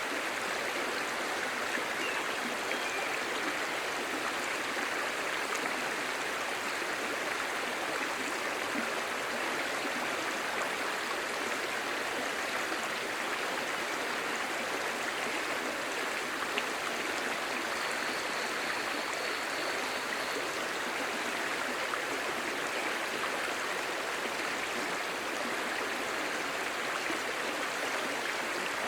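Clear stream babbling over rocks: a steady, even rush of water.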